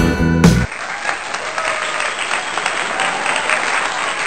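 A strummed acoustic-guitar song cuts off sharply under a second in, and applause from an audience follows.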